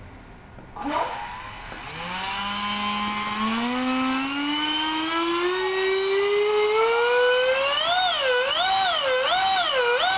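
Black Tornado V2 five-blade electric ducted fan, driven by a 2853 4800KV brushless motor, spinning up: its whine climbs steadily in pitch as the throttle is slowly opened, then from near the end rises and falls repeatedly, a bit faster than once a second, as the throttle is pumped.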